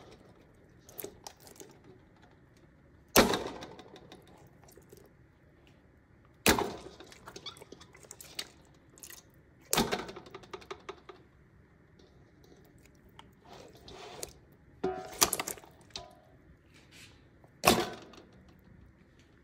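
Whole tilapia being handled in a stainless steel bowl: five sharp knocks, a few seconds apart, with fainter clicks and rustles between.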